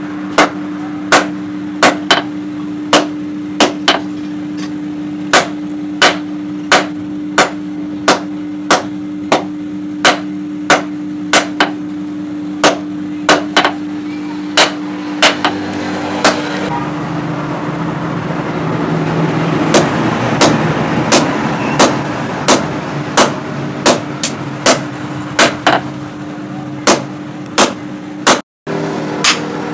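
Hand hammer striking red-hot rebar steel on a steel post anvil: sharp ringing blows, about one to two a second, in a steady forging rhythm. A steady low hum runs underneath, and a rushing noise swells up through the middle.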